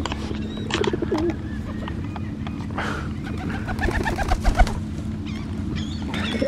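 Feral pigeons cooing in short wavering calls over a steady low hum.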